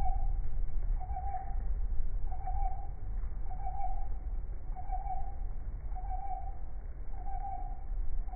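A short, mid-pitched hooting tone repeating steadily about once a second, about eight times, over a low rumble. It is the unexplained strange sound heard during a nearly thunderless electrical storm.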